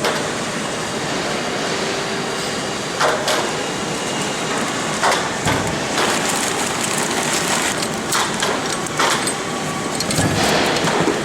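Steady workshop noise with scattered knocks and clatters, about half a dozen, from the HE851 turbo lifting clamp and turbocharger being handled.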